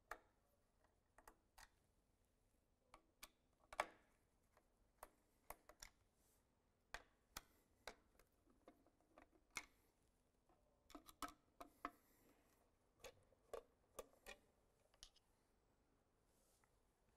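Faint, irregular clicks and ticks of a screwdriver loosening the cover screws of a digital electro-pneumatic valve positioner and the clear hood being handled, with one sharper click about four seconds in.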